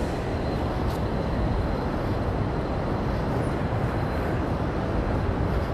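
Steady city street noise: a low rumble and hiss of traffic with no single sound standing out.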